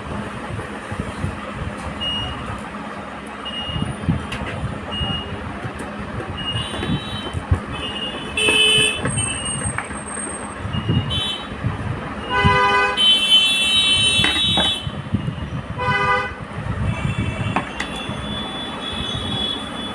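Vehicle horns honking several times in traffic, the longest run lasting about two seconds in the latter half. Beneath them are low knocks and rumbling.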